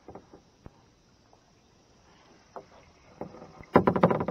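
A few faint knocks and clicks, then near the end a short loud splash of about half a second as a largemouth bass is let go into the water.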